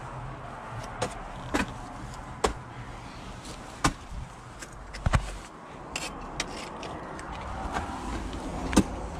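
Ice tool picks and crampon points striking hard ice during a climb. There are about eight sharp, separate hits at uneven intervals, the strongest near the end.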